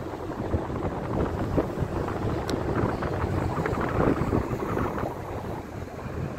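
Rumble of a car driving along a city street, heard from inside the moving car, with wind noise on the phone's microphone.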